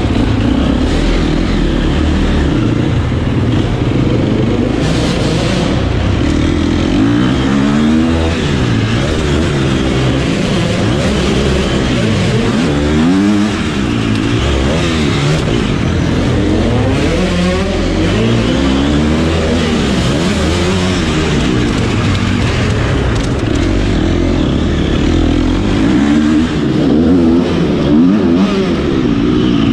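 Husqvarna FC250 single-cylinder four-stroke motocross bike ridden hard, heard onboard: the engine revs climb and drop again and again as the throttle is opened and shut through the track's straights and turns.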